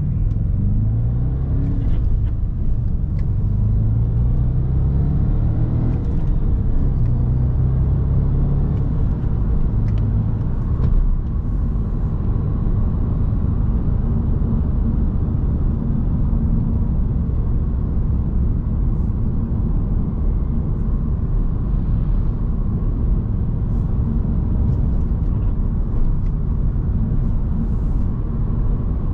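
Audi S5's 4.2-litre V8 heard from inside the cabin, pulling hard through the gears of the manual gearbox: the engine note climbs in pitch and drops back at each upshift several times in the first ten seconds or so. It then settles into a steady cruise with a low rumble and tyre noise from the wet road.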